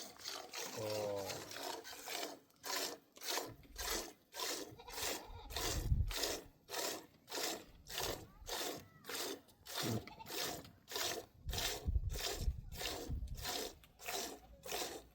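Rhythmic back-and-forth scraping or rubbing, about two strokes a second, with a few dull low thumps.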